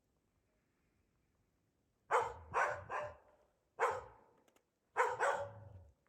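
A dog barking: six short barks in uneven groups, starting about two seconds in after near silence.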